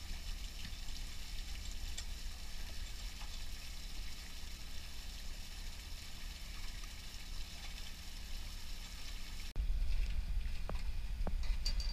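Motor-driven dewatering pump running steadily while water gushes out of its discharge and splashes into the sea. About nine and a half seconds in, the sound cuts abruptly to a louder low rumble with a couple of faint knocks.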